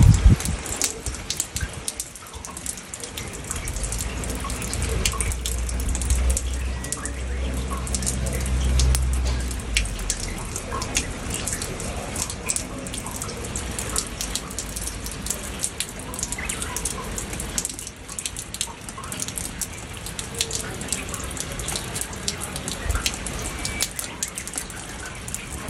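Steady rain falling, with many individual drops hitting and dripping close by. A low rumble runs underneath from about four to ten seconds in.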